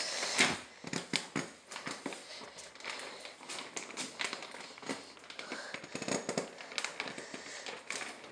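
Plastic sheeting crinkling and crackling as it is handled and pushed aside, in irregular rustles and sharp crackles.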